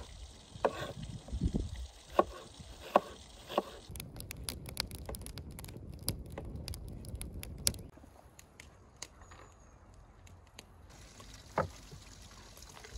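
Knife chopping onions on a wooden cutting board, a few sharp knocks, followed by a wood fire of split planks crackling with quick pops for a few seconds, then one more knife knock near the end.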